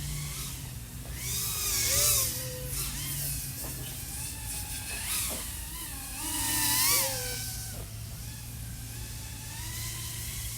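Brushless motors of an iFlight AOS 3.5-inch FPV quad (XING 1504 3100KV) whining, their pitch sweeping up and down with the throttle. Two louder surges come about two seconds in and about seven seconds in.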